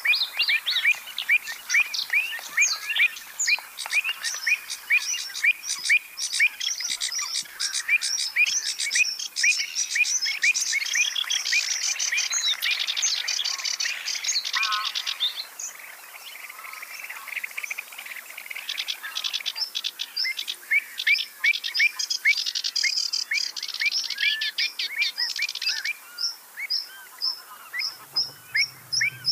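Several marsh birds calling and singing over one another: a steady run of short chirps about three a second, with bursts of fast chattering song in the middle and again later. A low hum comes in near the end.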